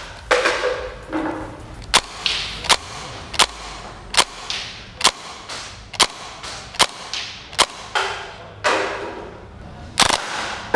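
Gas-powered blowback gel blaster (Well G55, an MP5K replica) firing single semi-automatic shots: a sharp crack roughly once a second, each with a short fading tail.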